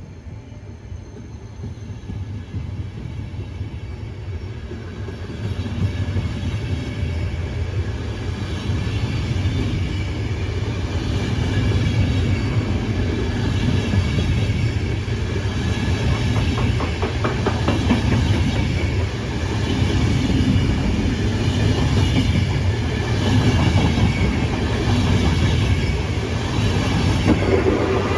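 Passenger train hauled by Trenitalia E402B electric locomotives rolling past on the track, growing steadily louder as it gathers speed. Faint high tones ride over the low rolling rumble, and the wheels clack over rail joints in a regular beat around the middle.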